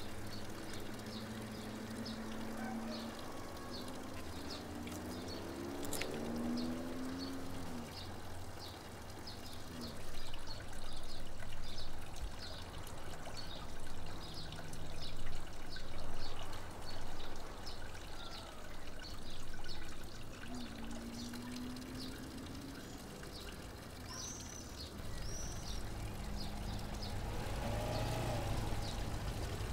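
Water running in a stream, with a high chirp repeating regularly about one and a half times a second over it. Near the end there are two short bird calls.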